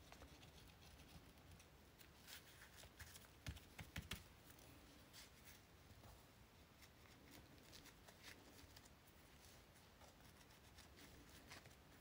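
Near silence with faint handling sounds of paper and lace being pressed down by hand and a glue bottle moved on the table. There are soft rustles and small taps, with a few louder knocks about three to four seconds in.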